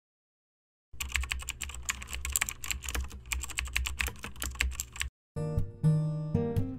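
Rapid computer-keyboard typing over a low hum, starting about a second in and lasting about four seconds, timed to a title being typed out. A brief pause follows, then guitar music starts.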